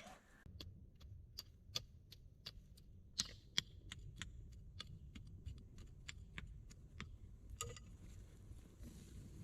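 Wood fire crackling: sharp irregular pops and snaps, about two or three a second, a couple of them louder, over a low steady rumble of the burning fire.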